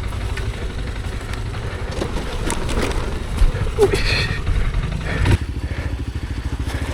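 Off-road motorcycle engine running at low speed over rough trail, with several knocks and clatters from the bike over the terrain in the middle.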